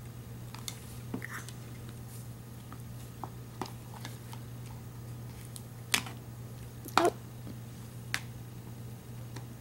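A baby handling small plastic bowls and a paintbrush: scattered light taps and clicks, the sharpest about six and seven seconds in, over a faint steady low hum.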